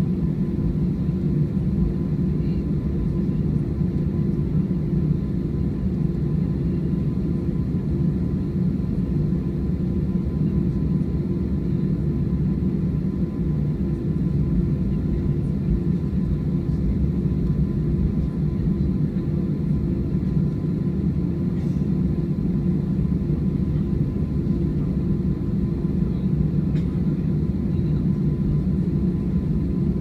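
Cabin noise inside an Airbus A321-211 taxiing: the steady low rumble of its CFM56 engines and airframe, with a faint steady hum above it.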